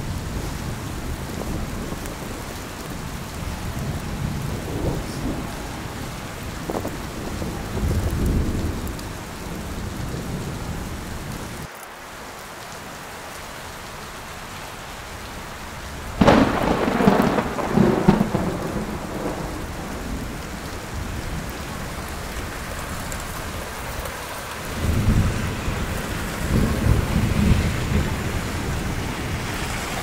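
City street ambience in a heavy snowstorm: a steady hiss with low rumbling. A louder rushing swell comes a little past halfway, and more low rumbling near the end.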